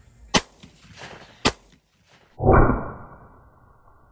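Two sharp clicks about a second apart, then a shotgun blast about two and a half seconds in, muffled-sounding, with a tail that dies away over most of a second.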